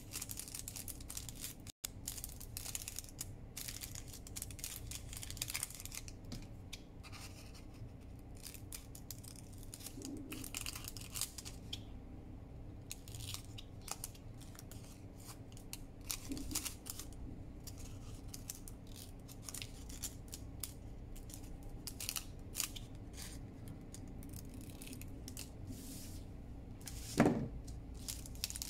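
Parchment baking-cup paper crinkling as it is folded and creased by hand, with snips of scissors cutting it, as a string of sharp crackles. One brief louder sound near the end.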